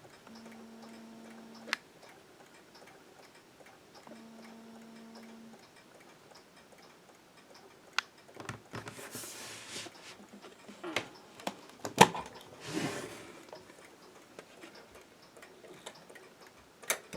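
Bentima mechanical mantel clock ticking, with a few sharp knocks and brief rustles over it.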